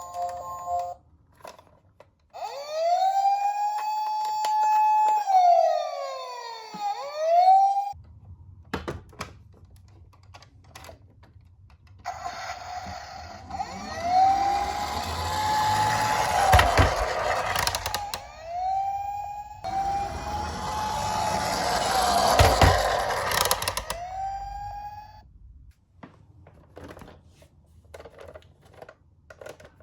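Toy police car's electronic siren wailing, its pitch rising, holding and falling, in two runs of a few seconds each. The second, longer run has a rough rustling noise underneath.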